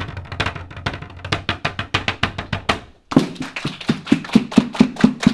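Rhythmic body percussion, with sharp claps, slaps and taps in a dense groove. It breaks off briefly about three seconds in, then a new pattern of evenly spaced strikes starts at about four a second.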